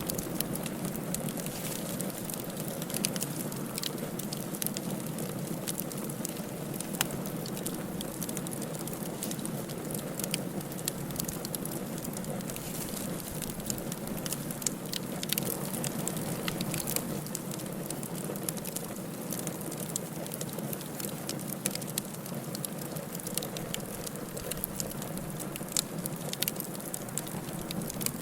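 Wood fire burning in a fireplace: a steady hiss and rumble of flames with frequent sharp crackles and pops from the burning firewood.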